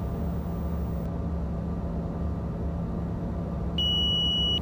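Steady cockpit noise of a Gulfstream G200 business jet in the climb: a drone of airflow and engines with a low steady hum. Near the end a single high electronic beep sounds for just under a second.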